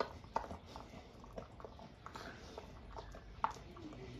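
A large dog chewing a raw whole duck: faint wet crunching with irregular sharp clicks as its jaws work on the meat and bone, the loudest right at the start and about three and a half seconds in. The chewing is slow and laboured, the duck hard for it to chew through.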